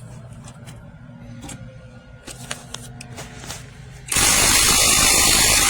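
AOBEN 21V cordless impact wrench hammering on a wheel's lug nut, starting suddenly and loudly about four seconds in after a few light clicks.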